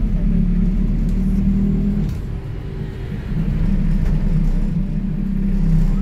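City bus engine heard inside the cabin, a steady low drone under way. It eases off about two seconds in, then picks up again.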